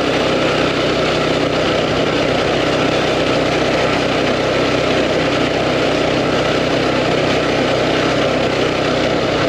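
The Coleman CT200U mini bike's 196 cc single-cylinder four-stroke engine running at a steady pitch while the bike is ridden along a gravel road, with a constant rush of wind and tyre noise over it.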